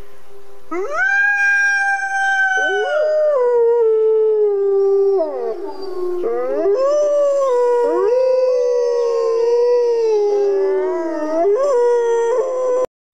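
Grey wolves howling in chorus: long drawn-out howls that overlap one another, each rising at the start and sliding down at the end. The chorus cuts off suddenly near the end.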